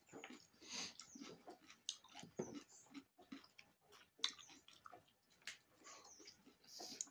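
Faint chewing and lip-smacking of someone eating close to the microphone: irregular short wet clicks and smacks.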